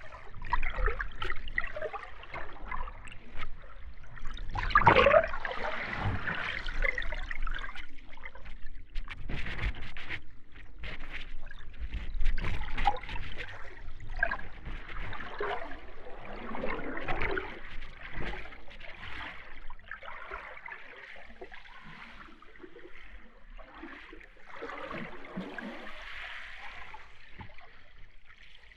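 Underwater ambience: bubbling and gurgling water with uneven swells and clusters of small pops, busier in the first half and calmer later.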